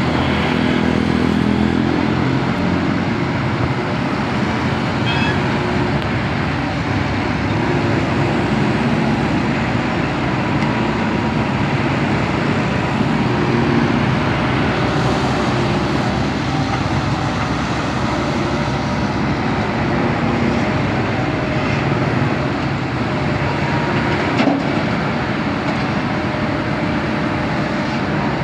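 Backhoe's diesel engine running steadily while it works, with one short knock about 24 seconds in.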